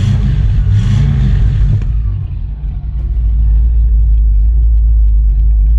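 1958 Cadillac's 365 cubic inch V8 heard from the exhaust at the rear: two quick revs in the first second and a half, then a steady, deep idle.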